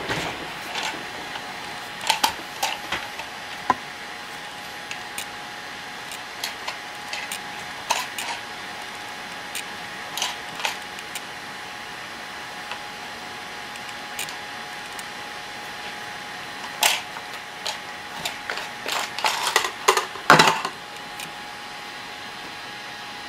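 Plastic handling noises from a PET-bottle BB loader: scattered clicks, taps and knocks as the bottle, its cap and its tube are turned over and set on a desk, with a busier run of louder plastic clicking and rustling near the end as the cap and tube come out of the bottle. A faint steady hum runs underneath.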